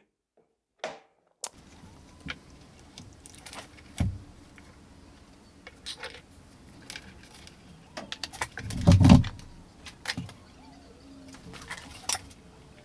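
Small clicks and rattles of wires, tools and a plastic relay module being handled on a wooden workbench during soldering. A heavier thud comes about nine seconds in.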